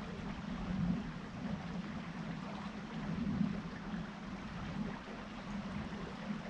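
River water flowing and babbling steadily, with no breaks or separate events.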